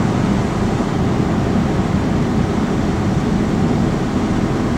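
Steady engine and road noise of a moving truck, heard from inside the cab.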